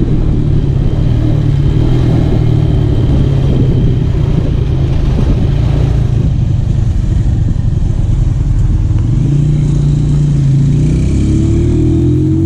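Modified, stroked-up Honda Tiger motorcycle engine running hard under throttle at a steady pitch, rising as it revs up again near the end.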